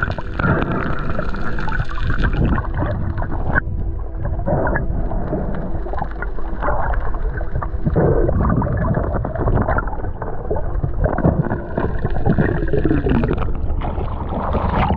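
Muffled underwater noise from a swimming spearfisher, heard through a camera held underwater: a steady low rumble with gurgling. Near the end it breaks the surface with splashing.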